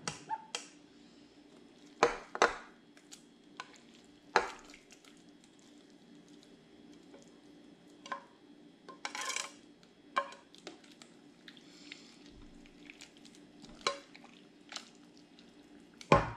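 Kitchen tongs clacking and knocking against a ceramic plate and a slow cooker's crock as shredded beef is moved into the cooker, with a short scrape of the plate about nine seconds in.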